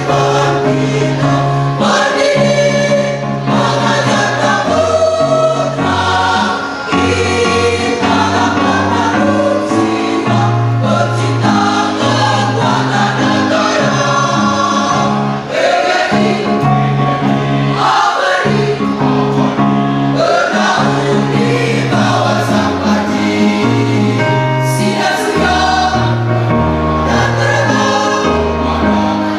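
A large mixed choir of women and men singing in parts, with sustained low notes stepping from chord to chord underneath.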